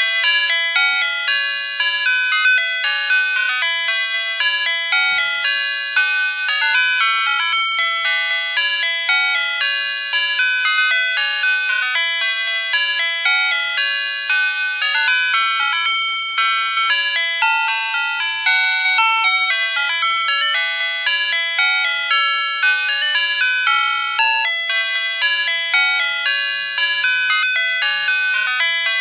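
Emergency alert alarm tune: a fast, unbroken run of high, bell-like electronic notes, several sounding together and changing a few times a second, like an ice-cream-van chime.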